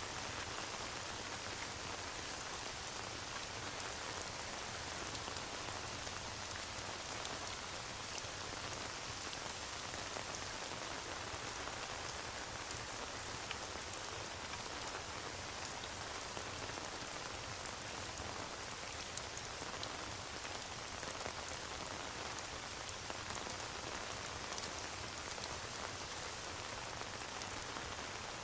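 Steady rain, an even hiss with scattered small ticks and crackles, from a rain-and-fireplace ambience track.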